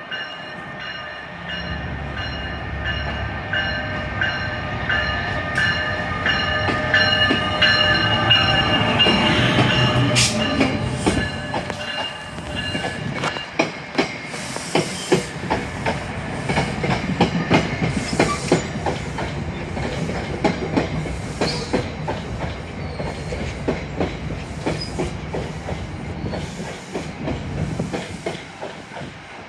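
NJ Transit locomotive-hauled train passing a station platform. For the first dozen seconds the approaching train gives several steady whining tones over a low rumble. After that the wheels of the passing coaches click rhythmically over the rail joints.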